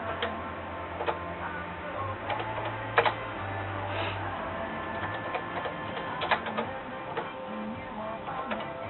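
Keys being typed in an irregular run of clicks on a vintage Apple II Europlus keyboard, over a steady low hum.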